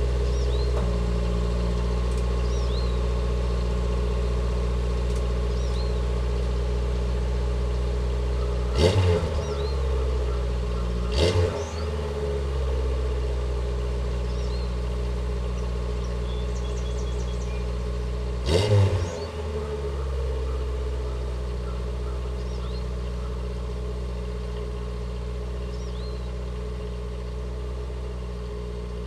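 A car engine idling steadily, blipped three times: quickly twice about nine and eleven seconds in, then once more near nineteen seconds. Each time it revs up and settles back to idle.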